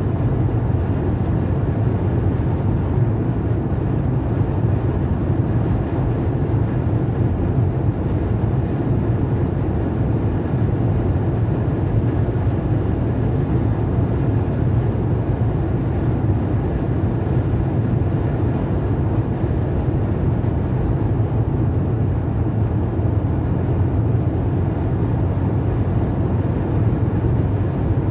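Steady low drone of a car's tyre and engine noise, heard from inside the cabin while cruising at motorway speed.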